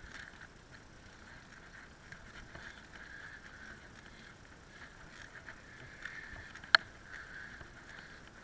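Bicycle rolling over a rough, broken path, picked up by a handlebar-mounted camera: a steady rolling hiss with small rattles, and one sharp clack about two-thirds of the way through.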